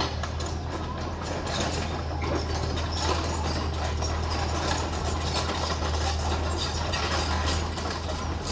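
Heavy earthmoving machine at work: a steady low engine drone under a dense, irregular clanking and rattling.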